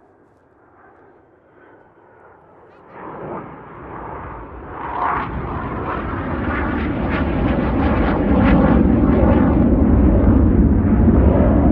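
BAE Hawk jet trainers' Adour turbofan engines approaching, the jet noise swelling from faint to loud over the first eight seconds or so, then holding steady and loud.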